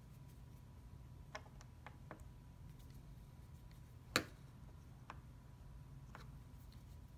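Scattered light clicks and taps of the clutch pedal and master cylinder pushrod being worked by hand under the dashboard while fitting the pedal into its slot, with one sharper knock about four seconds in.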